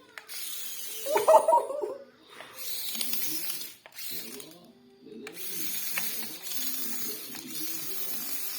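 A short excited vocal exclamation about a second in, then a simple melody of short stepping notes over a steady high hiss.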